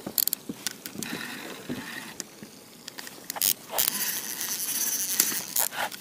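Fishing reel ratcheting and whirring as a strong hooked carp is played on the rod, with scattered sharp clicks and a louder stretch of whirring from about four seconds in.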